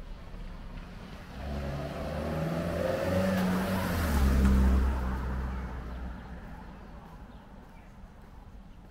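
A car drives past, its engine and tyre sound building over a few seconds, loudest around the middle, then fading away.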